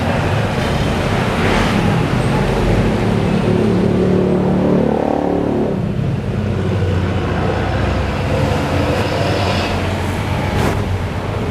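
Road traffic: a steady low engine rumble of passing vehicles, with a louder pitched sound rising out of it about four to six seconds in.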